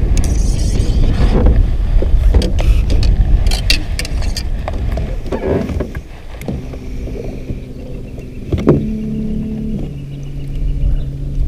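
Wind buffeting the microphone, with sharp clicks and knocks from handling the rod and reel. From about six seconds in, the steady electric hum of a Minn Kota bow-mount trolling motor sets in, its pitch stepping twice as the speed setting changes.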